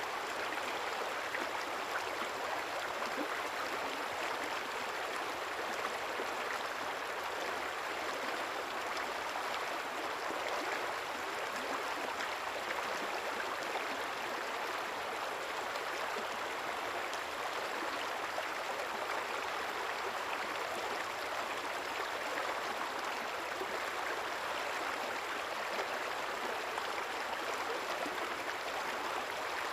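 A river or stream running steadily, its water making a continuous, even rush and gurgle.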